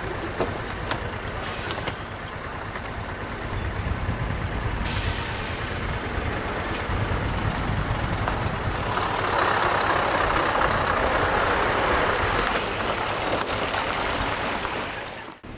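Heavy vehicle's engine running steadily, with a long hiss of air starting about nine seconds in and lasting some three seconds; the sound cuts off suddenly near the end.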